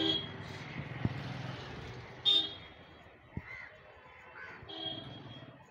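Street traffic with auto-rickshaw and motorbike engines running, and a crow cawing three short times: at the start, loudest a little after two seconds in, and again near the end.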